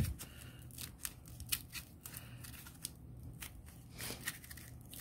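A sheet of aluminum foil being crumpled and squeezed by hand into a sausage shape: faint, irregular crinkles and crackles.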